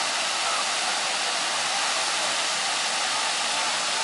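Water rushing over a wide, stepped rock waterfall: a steady, unbroken hiss of falling water.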